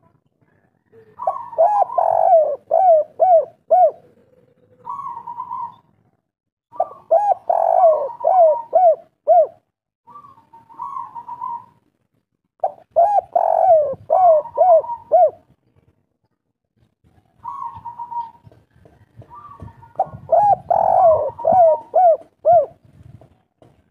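Spotted dove (tekukur) cooing a 'kuk 3' song: four phrases about six seconds apart, each ending in a quick run of about five short hooked coos, with shorter single coos between the phrases.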